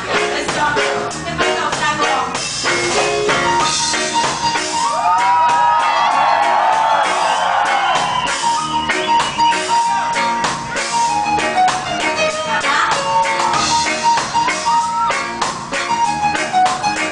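Live reggae band playing with a steady drum and bass rhythm. A few seconds in a long high note is held over it, and in the middle swooping sounds glide up and down.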